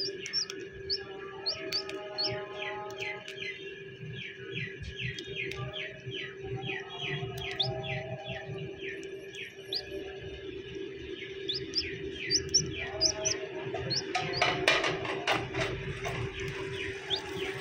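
Chicks peeping: a steady stream of short, high chirps. About fourteen seconds in come a few seconds of crackling clicks as fingers pick away the shell of a pipped egg.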